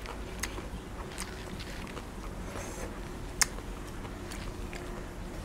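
Close-up chewing of latok (sea grapes), with a few sharp little pops as the beads burst in the mouth; the loudest pop comes about three and a half seconds in.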